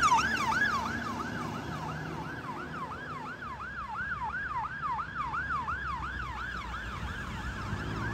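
Scania fire engine's two-tone electronic siren in a fast yelp, its pitch sweeping up and down about three times a second, fading over the first few seconds as the appliance pulls away. A low engine and traffic rumble sits beneath it.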